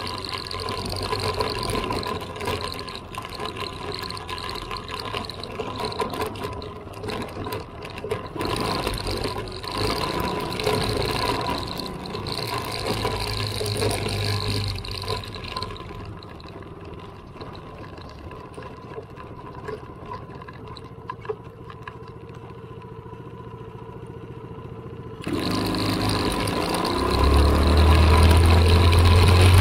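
Small off-road vehicle's engine running along a dirt trail, mixed with a steady rushing noise of movement. It is quieter for a stretch in the middle, then grows suddenly louder and revs up strongly near the end.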